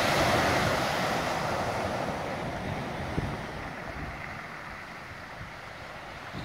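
A sea wave breaking on the shore and washing up the beach, its hiss loudest at first and fading slowly over several seconds. Light wind rumbles on the microphone underneath.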